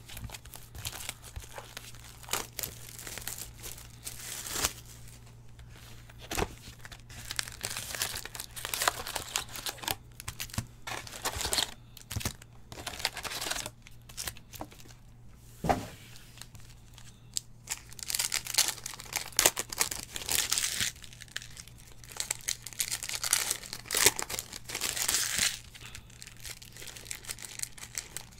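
Foil wrappers of trading card packs being torn open and crinkled in irregular bursts, with the cards inside being handled.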